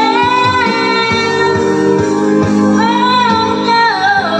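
A singer's voice carried by a microphone and a mid-high PA speaker system, over a guitar backing track. The singer holds a high note at the start, then sings a second phrase about three seconds in.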